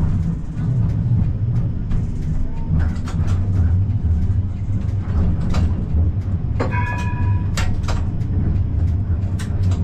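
Siemens Combino tram running, heard from inside: a steady low rumble with many sharp clicks from the wheels on the track. A brief high ringing tone comes about seven seconds in.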